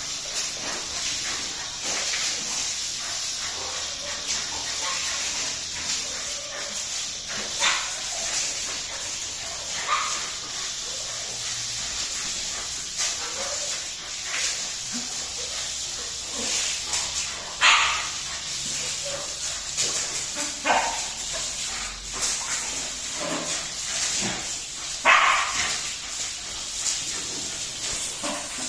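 Dogs barking in short, scattered barks, several times, over the steady hiss of water spraying from a garden hose.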